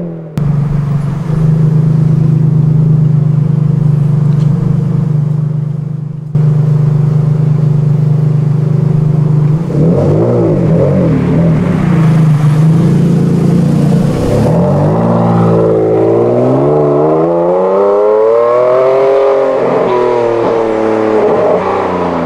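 Ferrari Enzo's naturally aspirated V12, fitted with an exhaust bypass valve, running loud at a steady pitch for about ten seconds. It then accelerates, the pitch climbing steadily to a peak and falling back near the end.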